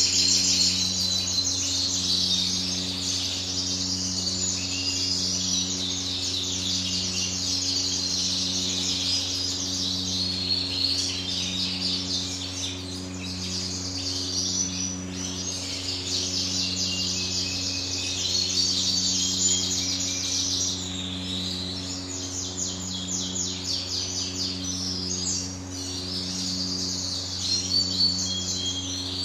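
Many canaries chirping and twittering at once, without a break, over a steady low mechanical hum that pulses gently about once a second.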